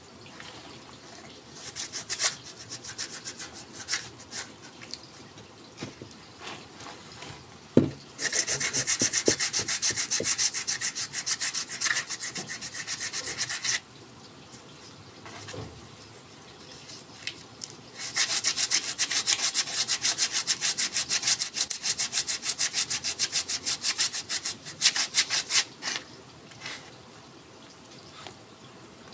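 Sandpaper rubbed back and forth by hand over the wood of a forest red gum didgeridoo. Light, scattered strokes at first and a single knock about eight seconds in, then two long runs of fast, steady strokes.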